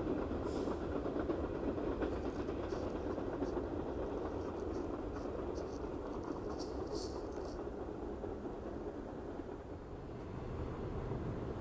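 R46 subway train pulling away on the rails, its steady running rumble fading as it recedes, with a string of short, high-pitched wheel squeals between about two and seven seconds in. Near the end the rumble builds again.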